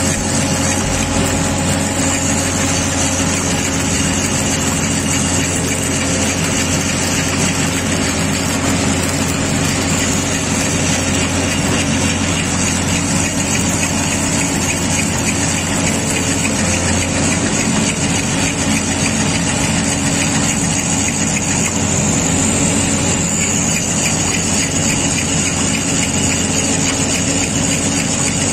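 Mobile rail flash butt welding plant running steadily through a weld cycle as the rail ends are flashed: a loud, unbroken machine drone with a low hum.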